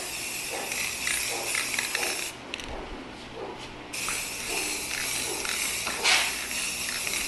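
Aerosol spray-paint can (Rust-Oleum, Regal Red) spraying, a steady hiss in two passes with a pause of about a second and a half between them.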